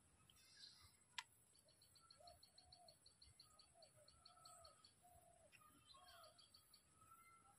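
Faint birds calling: a fast string of high pips over a series of short, lower notes, with one sharp click about a second in.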